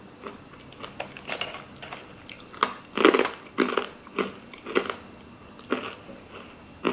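Close-miked chewing of a crisp, well-browned french fry: irregular crunches, the loudest about three seconds in.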